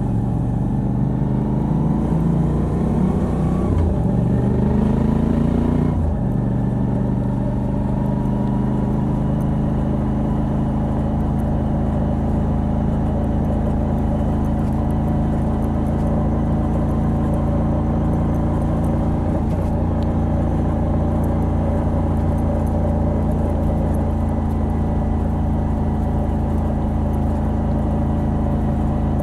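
A Moto Guzzi V85TT's air-cooled transverse V-twin, with its stock exhaust and a decat pipe, heard from the rider's seat. It climbs in revs for the first few seconds, drops sharply about six seconds in as it shifts up, then holds a steady cruising note.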